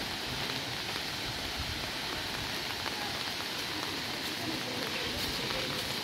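Steady hiss of light rain falling.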